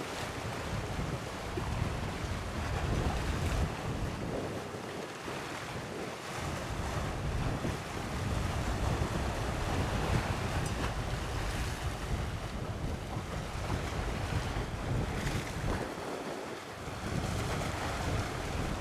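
Wind buffeting the microphone over the wash of sea waves: a continuous rumbling noise that swells and eases with the gusts.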